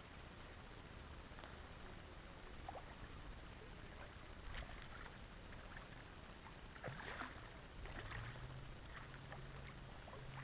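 Faint outdoor background noise with water lapping and a few soft knocks. A low steady hum starts about eight seconds in.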